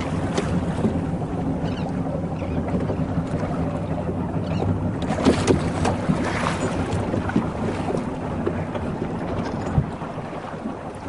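Boat motor running steadily at low revs, with wind on the microphone and a few short knocks midway.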